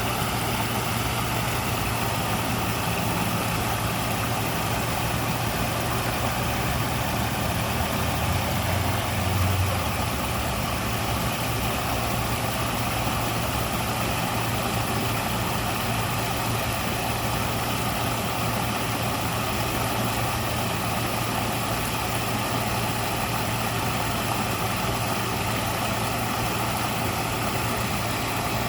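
Waterfall: a steady, unbroken rush of falling water with a deep rumble underneath, swelling slightly in its low rumble about nine seconds in.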